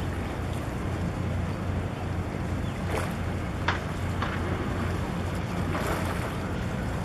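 Steady low drone of a boat engine, with wind buffeting the microphone and harbour water slapping, including a few short splashes about three to four seconds in and again near six seconds.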